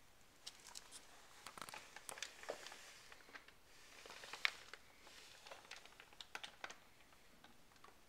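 Faint handling noise from a handheld camera moved in close around the motorcycle: light rustling and scattered small clicks, with one sharper click about four and a half seconds in.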